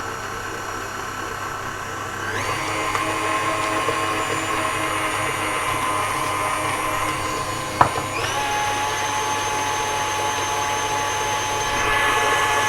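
Electric mixer running steadily, creaming butter and sugar for a batter. Its motor whine steps up to a higher speed twice, about two seconds in and about eight seconds in, with a single sharp knock just before the second step.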